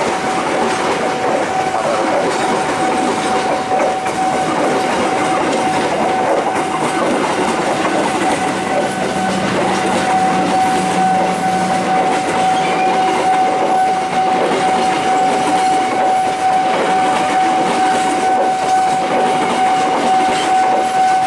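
Economy-class passenger coaches rolling past close by, their wheels clacking over the rail joints. A steady high warning tone from the level-crossing signal sounds throughout.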